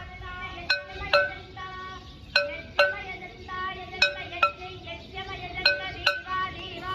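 Aarti bells struck about twice a second in an uneven rhythm, each strike ringing on with several clear overlapping tones.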